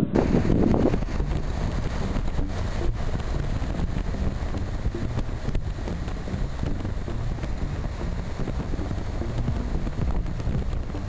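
Wind rushing over the microphone of a camera on a touring motorcycle at road speed, with steady engine and road noise underneath; a little louder in the first second.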